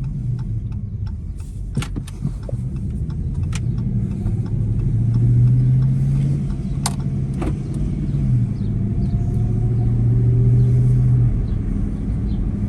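Dodge Charger's Hemi V8 running while driving, with steady low road rumble. The engine tone strengthens about four seconds in, holds, and falls away near the end. The rattle and engine clatter that had been there are no longer heard.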